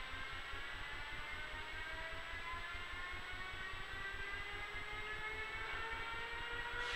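A Siemens Vectron electric locomotive's traction equipment whining in several parallel tones that climb slowly and steadily in pitch as it moves off and gathers speed.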